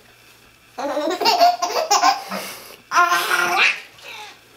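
Baby laughing in two long bouts, the first starting about a second in, with a short one near the end.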